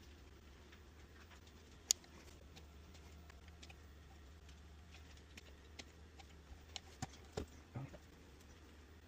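Faint scattered clicks and light knocks from hand work on the boombox build, with one sharp click about two seconds in and a cluster of clicks later on, over a low steady hum.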